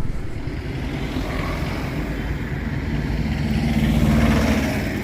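Motorcycle engine running while riding, with road noise; it grows louder around four seconds in, then eases off.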